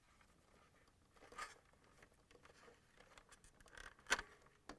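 Faint handling noises from a plastic refrigerator dispenser control panel as its wiring-harness plugs are worked loose: a soft rustle about a second and a half in, then a few light ticks and one sharper click a little after four seconds.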